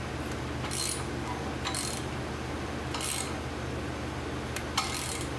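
A Honda engine's crankshaft being turned slowly by hand with a tool, bringing the piston up to top dead center: four short rasping strokes about a second apart and a sharp click near the end. A steady low hum runs underneath.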